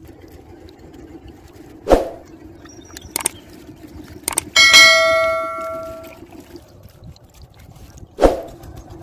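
Subscribe-button animation sound effects: a short swoosh, two mouse clicks, then a bright bell ding that rings out and fades over about a second and a half, and another swoosh near the end.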